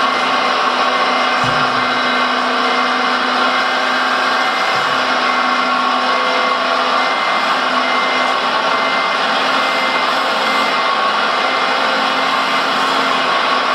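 Hydraulic pump of an RC Liebherr 956 model excavator (rebuilt with new valves and hydraulics, run at 36 bar) running with a steady whine and hiss as the bucket and arm are slowly worked, its pitch shifting slightly a few times.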